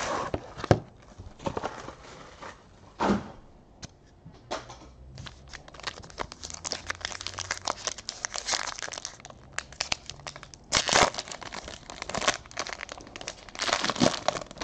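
Plastic and foil wrapping crinkling and tearing in irregular rustling spurts as trading card packs are opened and cards handled, with a louder burst of crinkling about eleven seconds in.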